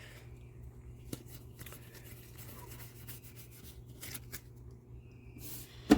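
Faint rustling and light clicks of trading cards being handled and slid apart, with a sharper click near the end, over a steady low hum.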